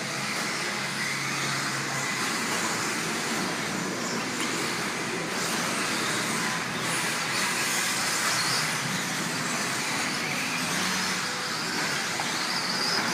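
Several 1/10-scale electric off-road RC buggies racing on the track, a steady whir of motors with a short rising whine near the end.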